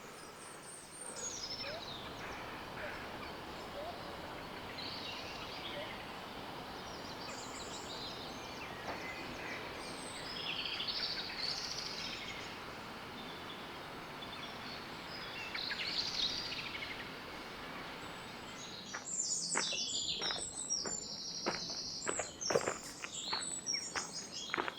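Birds chirping and singing over a steady outdoor hiss. About three-quarters of the way in, footsteps start up, crunching along a path.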